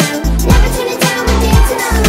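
Upbeat pop music with a steady bass beat, about two beats a second.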